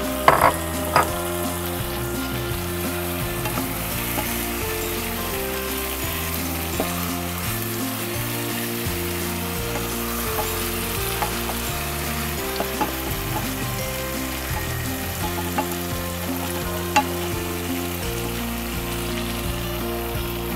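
Chicken pieces in tomato paste sizzling and frying in a nonstick pan while a wooden slotted spatula stirs them, with a few sharp clicks of the spatula against the pan near the start and once about 17 seconds in.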